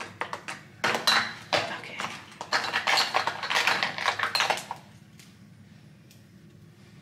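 Quick clicks and clatter of small hard objects, makeup cases and tools being picked up and set down, lasting about five seconds before stopping.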